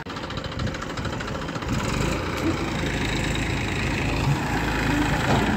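Massey Ferguson 241 DI tractor's diesel engine running, growing louder and heavier about two seconds in.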